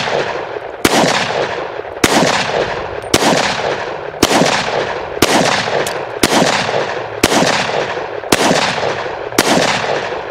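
Pistol firing .357 SIG rounds (125-grain Speer Gold Dot hollow points): nine shots at a steady pace of about one a second, each report trailing off in an echo until the next.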